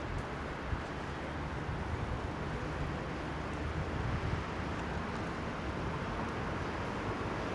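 Steady low rumble of outdoor engine and traffic noise, with no distinct knocks, crashes or falling debris.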